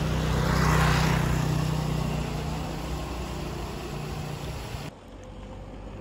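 A vehicle passing close by: a low engine hum and road noise swell to a peak about a second in, then slowly fade. The sound drops away suddenly about five seconds in, leaving a quieter background.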